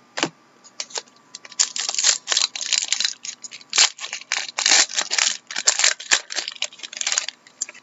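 Trading cards being handled: an irregular run of short clicks and rustles as stiff card stock slides and flicks against other cards.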